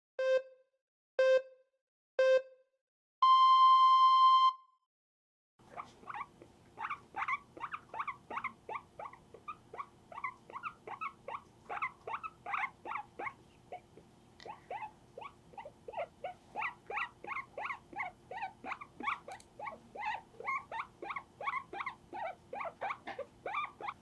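Countdown beeps: three short tones a second apart, then one longer, higher tone. After a short gap, a guinea pig squeaks over and over, about three or four short calls a second.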